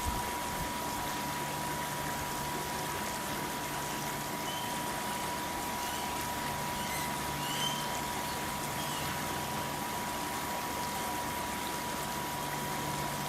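Steady rush of running water, with a thin steady tone and a few faint short chirps.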